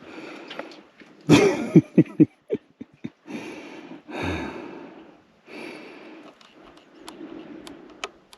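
A person breathing hard from exertion: a quick run of loud, short gasps about a second in, then slower, longer breaths.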